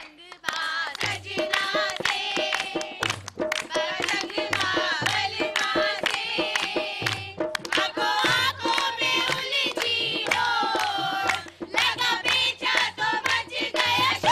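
A group of women and girls singing a mehndi folk song together, with dholak drum and hand clapping keeping an even beat. It starts about half a second in.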